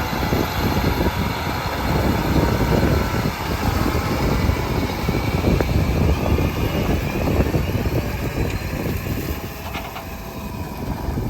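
Heavy harvest machinery running, a steady engine rumble.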